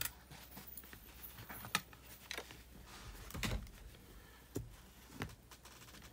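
Faint, scattered light clicks and taps, about six spread over several seconds, from small tools such as tweezers and parts being handled on a work mat.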